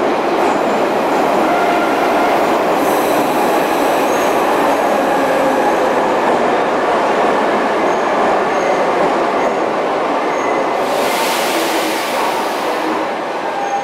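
Metro train pulling into the station along the platform: a loud, steady rumble of the train running on the rails, with thin high squeals now and then. About eleven seconds in, a sharp hiss of air sounds for a couple of seconds.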